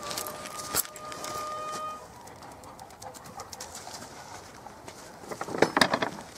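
A fox-hunting horn held on one long steady note for about two seconds, the huntsman calling the hounds in. Footsteps on grass and leaves, with a burst of louder scuffing near the end.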